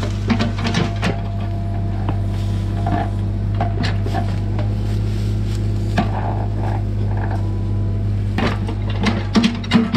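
Cat 303 CR mini excavator's diesel engine running steadily, with scattered sharp knocks and cracks of a hand tool hacking at tree roots in the dirt, coming quickly one after another near the end.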